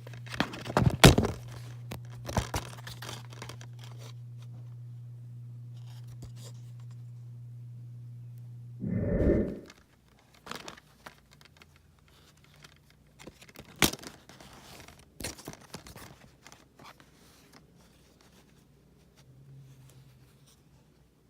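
DVD cases and their plastic shrink-wrap being handled: crinkling, scraping and tearing with sharp clicks and knocks, the loudest about a second in and again near fourteen seconds. A steady low hum runs until about nine seconds in, where it stops after a short loud rumble.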